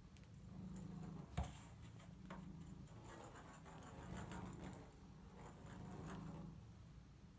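A ping pong ball knocking and clicking against a bathtub as a domestic longhair cat bats it, with one sharp knock about a second and a half in. Under it, the cat purring faintly, a low hum that swells and fades with each breath.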